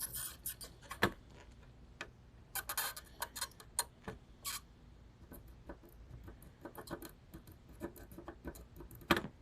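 Irregular light clicks and taps of a soldering iron tip against the HDMI port pins on an Xbox One S circuit board, as solder is worked onto a pin that doesn't want to take.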